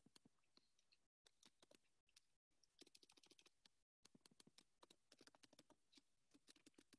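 Very faint keystrokes on a computer keyboard: irregular typing, a few scattered keys at first, then quicker runs of keys from about three seconds in.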